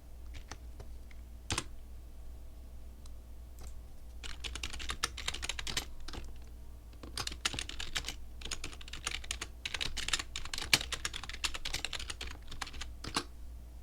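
Typing on a computer keyboard: a few separate key clicks at first, then fast runs of keystrokes from about four seconds in, broken by short pauses. A steady low hum lies underneath.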